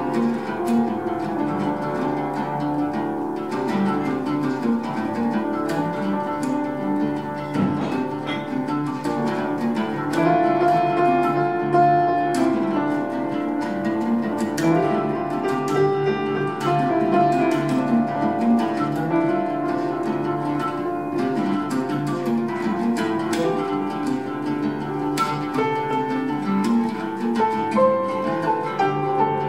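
Oud and piano playing together: a steady stream of plucked oud notes over piano, with a few notes held longer about halfway through.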